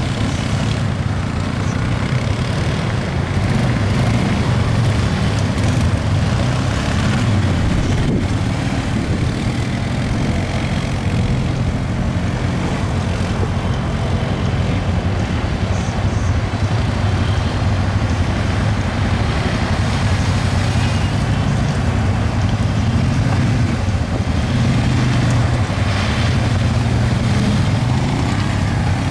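ATV engines running steadily, a constant low engine hum, over a steady rush of noise from the riders splashing through the river.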